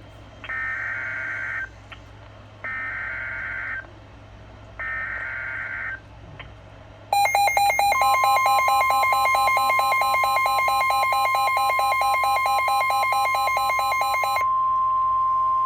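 Emergency Alert System weather-radio alert tones: three short bursts of the buzzing SAME digital header. About seven seconds in comes the loud, long attention signal, a harsh cluster of tones joined a moment later by a steady high tone, which carries on alone after the cluster cuts off near the end.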